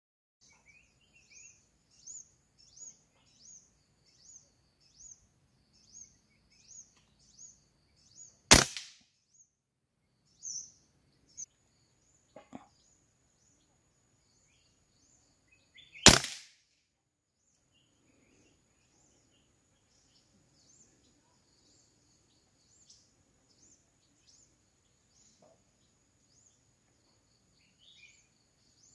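Two sharp rifle shots, about seven and a half seconds apart, with a lighter click between them. Before the first shot a bird calls over and over, a short high chirp roughly every 0.7 seconds.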